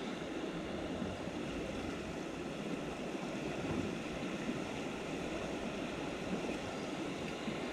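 Steady rushing of river water flowing.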